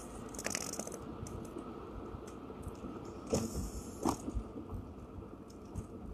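Car cabin noise while driving: a steady low road and engine rumble, with a few scattered clicks and rustles close to the microphone, the clearest about three and four seconds in.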